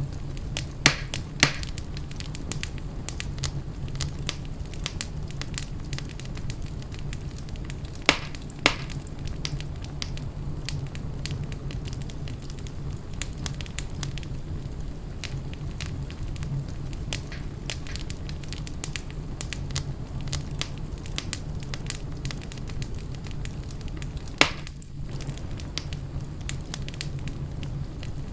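Wood fire crackling in a fireplace: a steady hiss of small crackles with a low rumble beneath. Sharper, louder pops come twice near the start, twice about eight seconds in, and once near the end.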